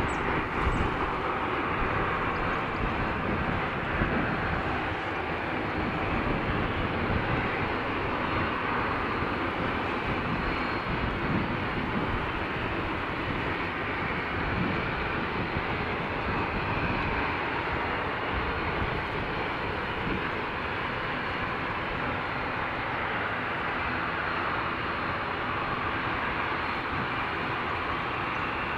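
Dassault Falcon 2000LX business jet's twin turbofan engines running steadily as the jet rolls on the ground: an even rush of jet noise with a faint high whine over it.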